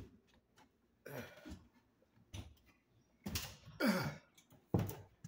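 A man's wordless vocal noises: throat clearing, breathy exhalations and a short groan that falls in pitch about four seconds in, spaced by brief pauses.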